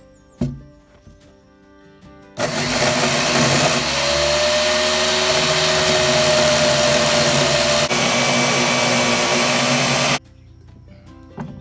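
Circular saw fitted with a Prazi beam-cutter chain bar, running under load as it cuts a slot into a 12x12 cedar post: a loud, steady rush with a whine, starting abruptly a couple of seconds in and stopping abruptly near the end.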